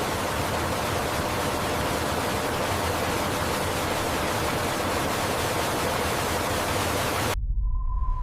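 Steady rushing noise of a waterfall sound effect. It cuts off abruptly about seven seconds in, and a low rumble and a short steady beep follow.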